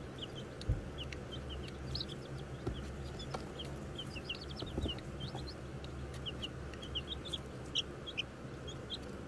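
Two-week-old Cochin and Ameraucana chicks peeping: many short, high chirps in a constant scattered chatter over a steady low hum, with one soft knock about a second in.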